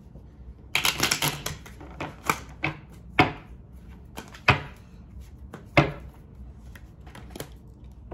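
Tarot deck being shuffled by hand: a quick flurry of card clicks about a second in, then single sharp card snaps every second or so.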